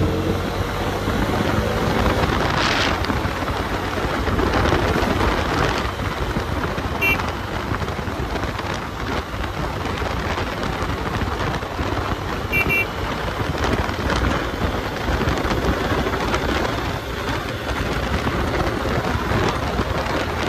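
Wind rushing over the microphone of a moving Bajaj Dominar 250 motorcycle: a steady, loud noisy rush that all but covers the engine.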